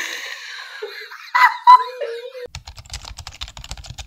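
A child laughing, then from about two and a half seconds in a fast clatter of typing on a laptop keyboard.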